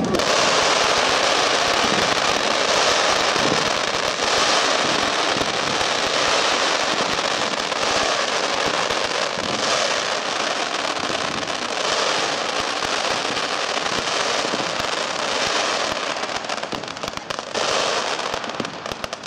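Molotov Mines consumer firework, a cake of mines firing from the ground: a continuous barrage of dense crackling and popping that eases off near the end.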